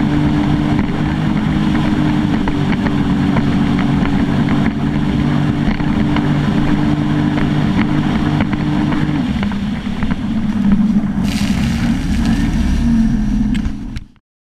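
Sea-Doo GTR 215 personal watercraft's supercharged three-cylinder engine running at a steady cruise, with water and wind noise. About nine seconds in the engine note drops slightly as it eases off, a hiss joins about two seconds later, and then all sound cuts off suddenly.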